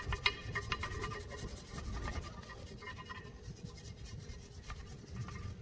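Scratchy hand strokes of sanding and scrubbing on a rusty cast-iron deep dish weight plate, taking off loose rust and flaking paint. There are a few sharper scrapes in the first second.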